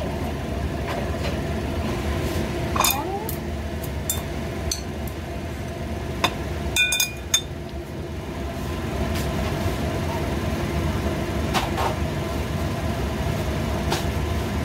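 Steady mechanical hum with scattered clinks and knocks of metal pots and utensils; a quick cluster of clinks about seven seconds in is the loudest part.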